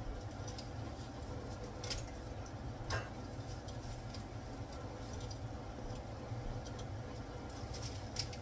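Metal tongs clicking against a stainless steel pot a few times as dry spaghetti is pushed into it, over a steady background hum.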